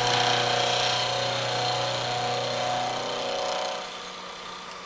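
Vertical milling machine cutting a flat on a shaft held in a dividing head: a steady cutting noise with a wavering whine. The cutting noise drops off about four seconds in as the cut ends, leaving the spindle running with a quieter hum.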